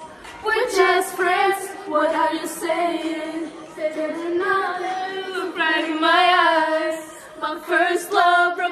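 A group of girls singing together, with a long held note that wavers about six seconds in.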